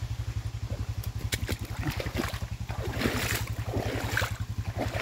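Quad bike (ATV) engine idling with a steady low throb, while footsteps splash and squelch through a shallow muddy ford about once a second.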